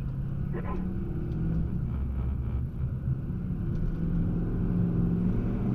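Motor vehicle engine running steadily, a low rumble with its pitch shifting slightly.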